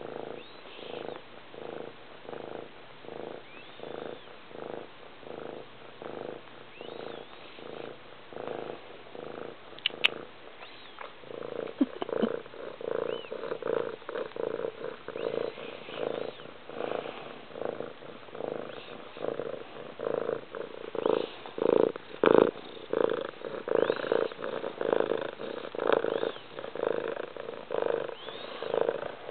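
Domestic cat purring loudly, close up, the purr swelling and fading in an even rhythm with each breath, and growing louder about twelve seconds in. A single sharp click about ten seconds in.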